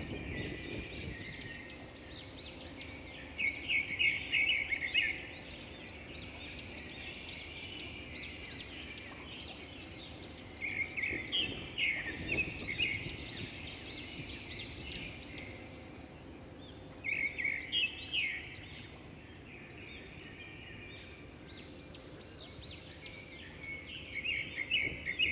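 Songbirds singing: quick, bright chirping phrases with four louder bursts of rapid notes, each a second or two long and coming every six or seven seconds, over a steady low background hum of the city.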